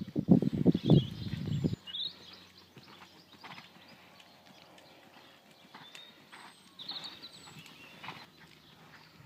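Hoofbeats of a ridden horse cantering on a soft arena surface, a steady three-beat rhythm of dull thuds that is loudest in the first two seconds.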